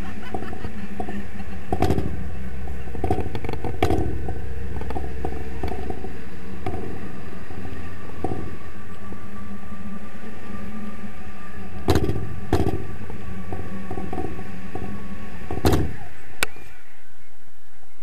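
Wind buffeting the action camera's microphone in flight under a tandem paraglider: a loud, steady low rumble broken by several sharp knocks from the camera mount. About a second and a half before the end the rumble falls away abruptly, leaving a lighter rush.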